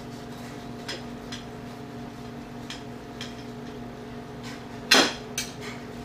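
Knife cutting through a baked cassava pone loaf on a ceramic plate: faint scrapes and light clicks, then a sharp clink about five seconds in as the blade meets the plate, with a smaller one just after. A steady hum runs underneath.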